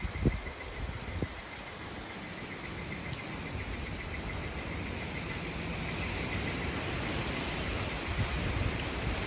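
Cicadas singing in a steady buzzing chorus that grows slowly louder. Low rumbles of wind on the microphone are heard in the first second or so.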